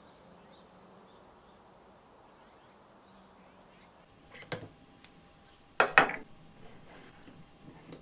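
Plastic handling sounds as the lid and coiled-spring press of a plastic whey-straining container are lifted off: a few light clicks a little past the middle, then a louder pair of sharp knocks about six seconds in, followed by small ticks.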